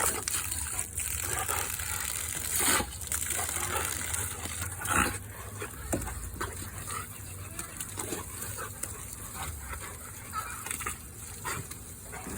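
Garden hose spraying a steady stream while a Rottweiler bites and snaps at the water, with a few sharp splashes about three and five seconds in.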